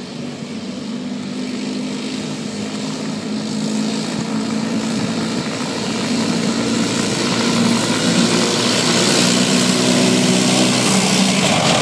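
M1A1 Abrams tank driving toward and past, its gas turbine engine whining over the noise of its tracks. The sound grows steadily louder as the tank approaches and is loudest near the end as it passes close by.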